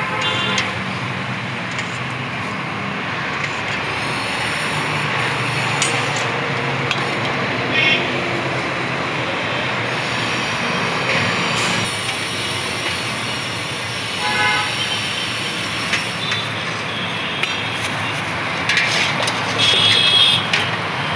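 Steady noise of road traffic from a busy street, with a few short, higher-pitched sounds, some in quick runs, standing out over it now and then.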